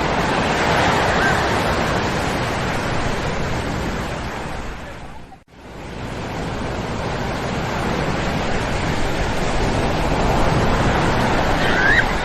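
Ocean waves breaking on a sandy shore: a steady rushing wash of surf that swells and eases, cutting out abruptly for a split second about halfway through before resuming. A brief high-pitched call sounds near the end.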